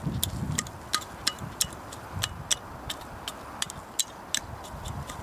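Small metal hand hoe chopping and scraping dry, stony soil around a transplanted chard seedling. The blade clicks sharply on grit and stones in quick, irregular strikes, about three a second, some with a brief metallic ring, over soft thuds of soil.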